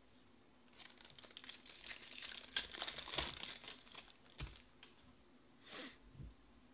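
Foil wrapper of a 2020 Topps Museum Collection baseball card pack torn open and crinkled by hand. The crackling starts about a second in and lasts a few seconds, then a soft rustle as the cards are slid out near the end.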